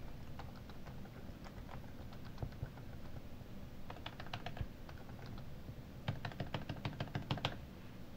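Typing on a laptop keyboard: runs of quick key clicks, busiest about four seconds in and again from about six seconds on.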